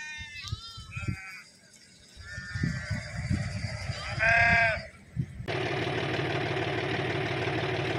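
Sheep in a flock bleating, several short calls one after another, the loudest about four and a half seconds in. At about five and a half seconds the sound cuts abruptly to a steady engine hum.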